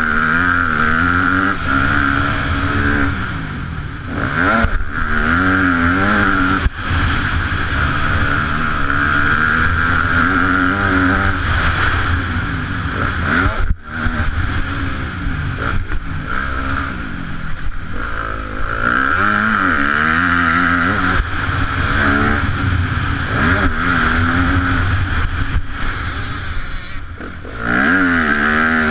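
Yamaha YZ250F four-stroke motocross bike engine being ridden hard, its revs climbing and falling constantly through the gears. There are brief drops in throttle about four seconds in, a sharp one about halfway and another near the end.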